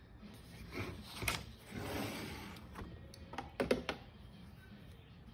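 A watercolour painting on its board being turned round on a table top: a scraping, rustling slide, then a few sharp knocks and clicks as it is set down.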